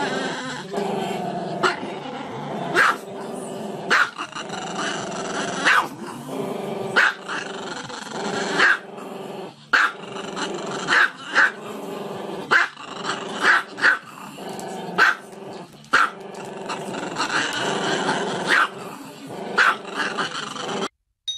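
Small long-haired dog with its head thrown back, vocalizing without pause: long drawn-out howling, growling cries with sharp barks breaking in about once a second.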